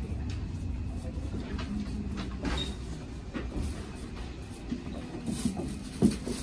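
Steady low rumble and hum of a Hanshin local train standing at a station platform with its doors open, with a few faint clicks and one short sharp knock near the end.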